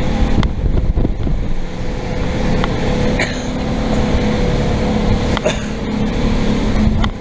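Motorboat engine running steadily under rough-water noise, with a few sudden knocks about half a second, three seconds and five and a half seconds in.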